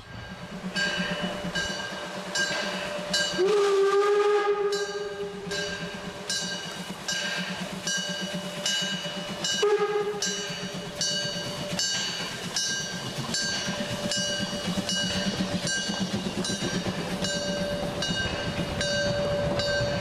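Narrow-gauge steam locomotive working a train, chuffing in a steady even rhythm. Its whistle gives a long blast about three seconds in and a short toot near the ten-second mark.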